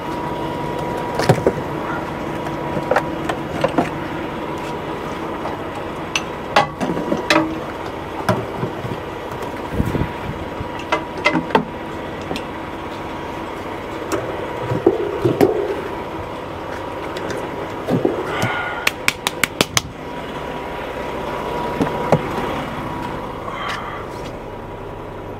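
Peterbilt 579 semi truck idling steadily while the air lines and electrical cord are hooked up to a tanker trailer, with scattered clanks and knocks of the gladhands and metal fittings and a quick run of about ten clicks a little before the last quarter.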